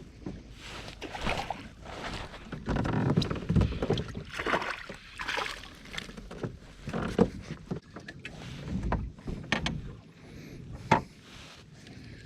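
Kayak paddling: irregular paddle strokes swishing and splashing in the water, with small bumps against the hull and one sharp knock near the end.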